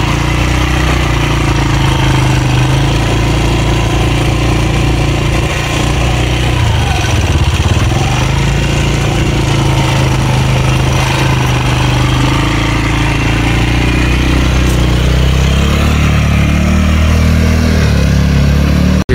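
ATV (quad bike) engine running steadily at low riding speed. Its pitch climbs over the last few seconds as it speeds up, then the sound breaks off abruptly.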